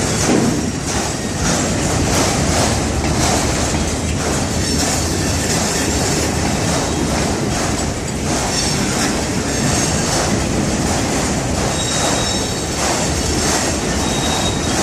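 Yard train of freight cars (auto racks) rolling past on yard track: a steady rumble of wheels on rail with repeated clicks over the joints, and thin high wheel squeal showing up in the second half.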